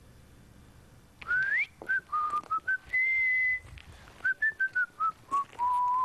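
A woman whistling a tune to call a lost African grey parrot. After a quiet first second there is a rising swoop, a few short notes, a held high note, then a run of short notes stepping down and a long lower held note.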